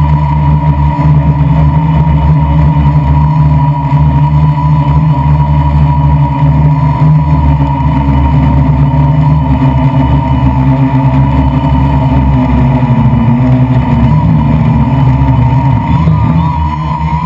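Quadcopter's electric motors and propellers running with a steady, loud buzz, heard from the drone's own microphone; the pitch wavers a little near the end.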